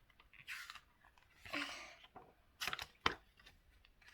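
Paper rustling with a few light clicks: the pages of a picture book being handled and turned.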